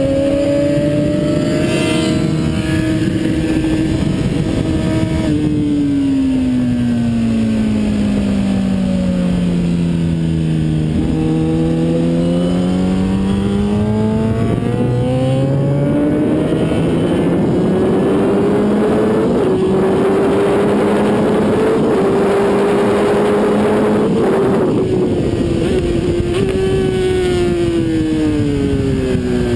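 Kawasaki ZX-10R inline-four engine at track speed, heard from on the bike under heavy wind rush. The revs fall smoothly for several seconds as it slows, climb back up as it accelerates, hold high, then fall again near the end.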